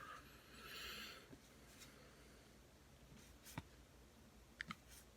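Near silence, with a faint short rustle near the start and a few soft clicks later on: baseball cards being handled and flipped through by hand.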